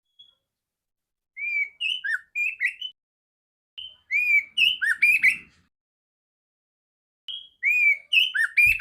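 Male oriental magpie-robin (kacer) singing: three short phrases of loud, clear whistled notes that slur up and down, with pauses of about a second between phrases.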